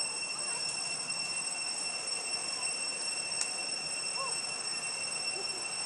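A steady high-pitched insect drone over background hiss, with a few faint short rising-and-falling calls about four and five seconds in.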